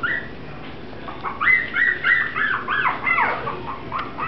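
Six-week-old Mi-Ki puppies yipping and squealing while they play-fight. A short rising squeak comes at the start, then a quick run of high-pitched yelps about a second in, each rising then falling in pitch, with more starting near the end.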